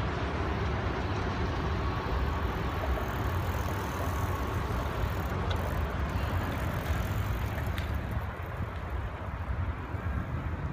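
Outdoor street noise: a steady low rumble of road traffic, with a couple of faint clicks.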